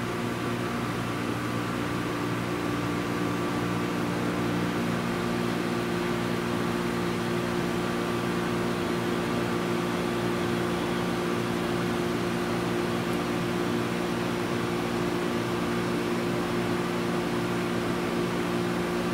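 Transformer-type soldering gun held switched on, giving a steady low electrical hum with a buzzy edge while wire ends are being tinned. One tone within the hum drops out about five seconds in.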